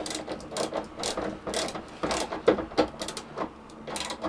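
A worm-drive Jubilee hose clip being tightened with a screwdriver on the rubber gas hose at the hob's inlet fitting. It gives a run of irregular ratcheting clicks, a few a second.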